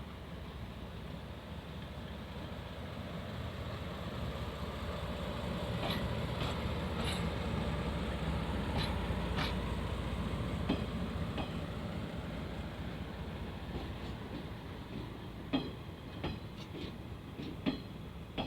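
SL Moka train, a C12 steam locomotive hauling coaches, running on the rails. A steady rumble swells and then eases, with scattered sharp clicks and knocks from the wheels on the track.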